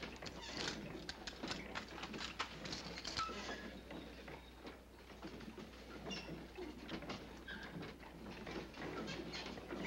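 Irregular rustling and light patter, with a few short bird chirps.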